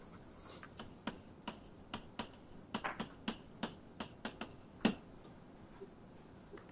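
Chalk tapping and clicking against a blackboard while writing a short word: a quick, uneven run of sharp taps, with one louder tap about five seconds in.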